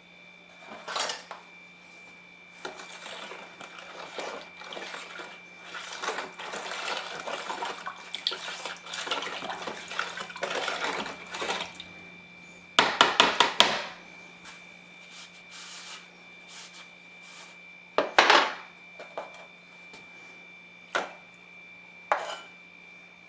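Metal parts clinking, rattling and scraping as they are handled, in a long busy stretch of several seconds followed by a few short, sharp clatters. A faint steady hum runs underneath.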